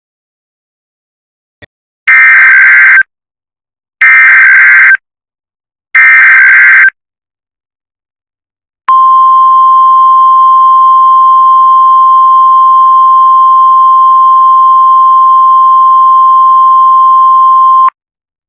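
Emergency Alert System SAME header: three one-second bursts of screeching digital data tones, about two seconds apart. These are followed by the steady, single-pitch NOAA Weather Radio attention tone, held for about nine seconds and then cut off, signalling that a weather warning message follows.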